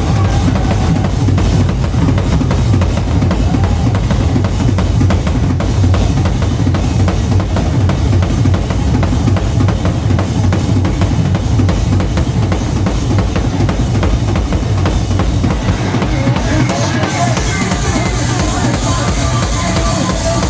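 Live noise rock from a drums-and-bass duo: fast, dense drum kit hits over heavily distorted bass guitar, loud throughout. About two-thirds of the way through the lowest bass drops back and a bright cymbal wash comes in.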